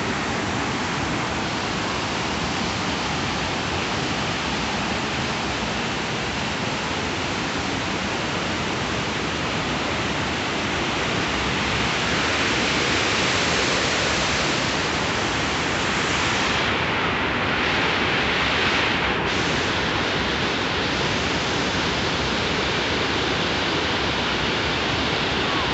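Steady rush of white water from the cascades of Wahkeena Falls tumbling over rocks. It gets louder about twelve seconds in, for several seconds.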